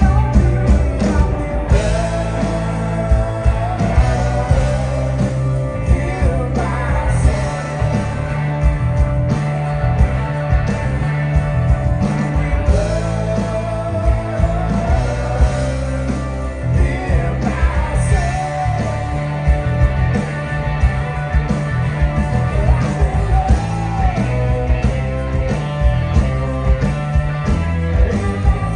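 Live blues-rock band playing loud: electric guitars, bass and a drum kit, with a man singing. Long held notes bend in pitch over a steady beat.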